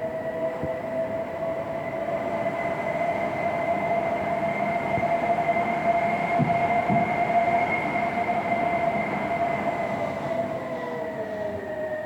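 Toyota RAV4 hybrid moving on electric power, heard from outside: a steady two-pitched electric whine that rises a little and gets louder toward the middle, then eases off near the end. Two short knocks come just past the middle.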